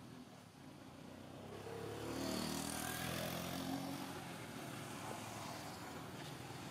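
A motor vehicle passing by, its engine sound swelling about two seconds in and then slowly fading.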